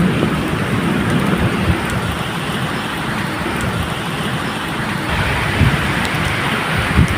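Steady medium rain hissing, with a low rolling rumble of thunder underneath that rises and falls.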